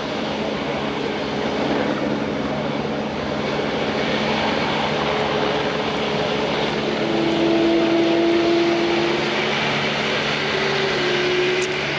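Airbus A350-900's Rolls-Royce Trent XWB turbofans running at low taxi power: a steady jet roar with a few whining tones that come and go over the second half.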